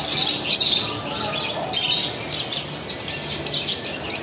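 Many caged pet birds chirping and squawking at once, a dense overlapping chatter of short high calls.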